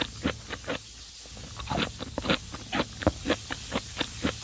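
A person chewing a mouthful of balut duck embryo: a run of short, sharp chewing clicks, about three or four a second, with a brief pause about a second in.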